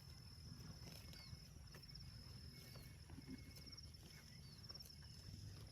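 Faint outdoor ambience: a steady, high-pitched insect trill that pulses now and then, a few short chirps, and a low rumble underneath.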